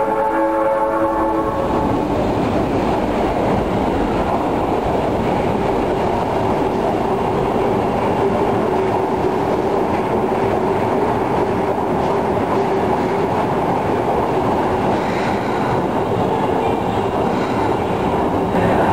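Osaka Municipal Subway train pulling into an underground station: a horn-like pitched tone for about the first second and a half, then the steady rumble of the cars running in alongside the platform, with a faint high squeal near the end as it brakes.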